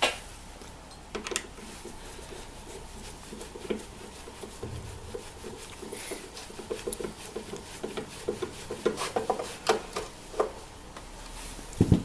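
Screwdriver driving the cross-head screws that hold a plastic car tail-light unit, with scraping and a run of small clicks. A sharp knock comes at the start, and another just before the end.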